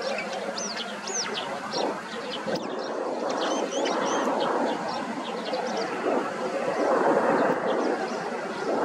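Jet engines of a twin-engine airliner running as it rolls along the runway: a steady, dense rumble. Many small birds chirp in quick, short notes over it.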